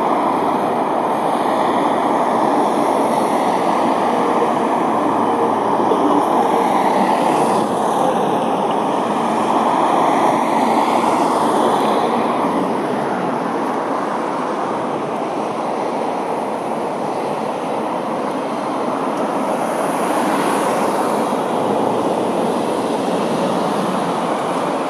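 Steady road-traffic noise from a queue of cars running in slow, stop-start street traffic, a little louder about a quarter of the way in and swelling again briefly near the end as vehicles pass close.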